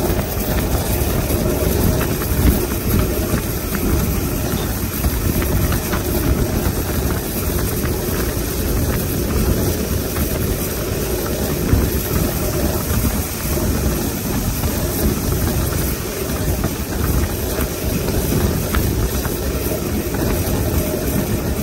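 Steam-hauled passenger train behind an LMS Black 5 locomotive on the move: a steady, loud rumble of wheels and running gear on the track.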